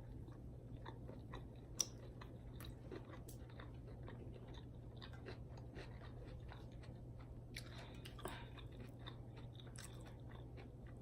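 A person chewing food close to the microphone, with soft wet mouth clicks and smacks and one sharper click about two seconds in.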